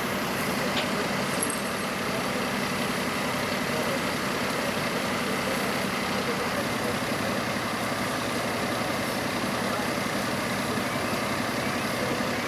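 Fire engine running at idle, a steady, unbroken engine hum.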